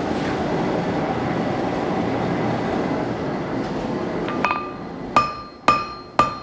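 Steady roar of the forge for about four seconds, cutting out; then a light tap and three hammer blows on hot 304 stainless steel at the anvil, about two a second, each with a bright ring.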